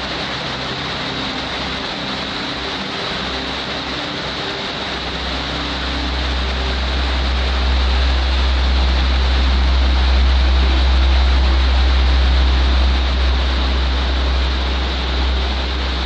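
Waterfall and rocky mountain stream rushing steadily, with a deep low rumble that swells about five seconds in.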